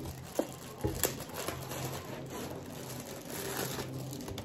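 Clear plastic packaging bag crinkling as it is handled and a small accessory is pulled out of it, with a few light clicks in the first second or so.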